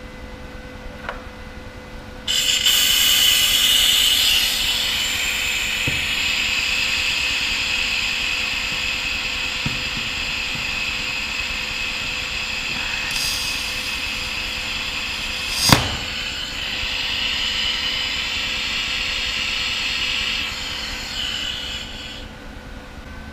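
Lift-TIG welding arc from a Sherman DigiMIG 200 welder, burning with a steady hiss that starts abruptly about two seconds in and tapers off near the end. One sharp crack comes about two-thirds of the way through, over a faint steady hum.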